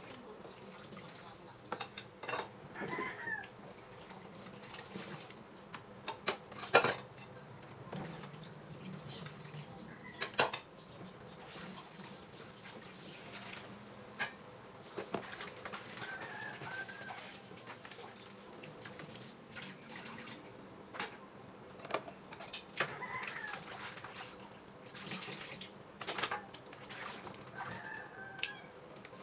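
Dishes and kitchenware knocking and clattering at a kitchen sink, in scattered sharp clanks, with a few short calls in the background.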